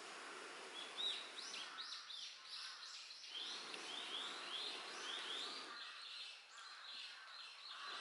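A songbird singing a long run of repeated short, arched whistled notes, about two a second, over a faint steady outdoor hiss.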